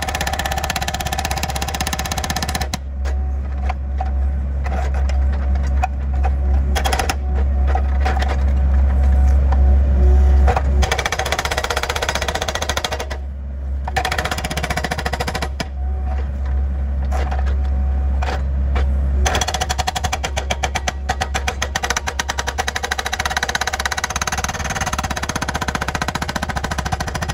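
Excavator-mounted hydraulic rock hammer pounding rock in rapid, even blows, stopping briefly about halfway through. Background music with a steady bass runs underneath.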